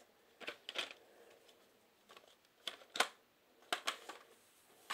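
Plastic CD jewel case being handled: a scattering of light clicks and rattles, with one sharper snap about three seconds in.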